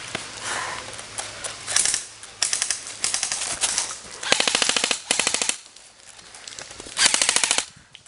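Airsoft rifles firing rapid full-auto bursts: several short bursts of fast, even clicks, the longest lasting about a second in the middle and a last one near the end.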